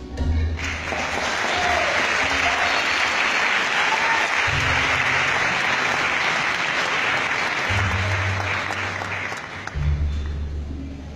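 Audience applauding loudly at the end of a song, the applause starting abruptly and thinning out near the end.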